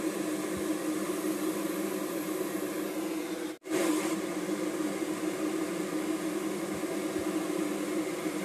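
Steady hum and hiss of kitchen background noise with a low droning tone while a potato and cauliflower curry cooks in a kadai. The sound cuts out for an instant about three and a half seconds in, then picks up again with a brief brighter hiss.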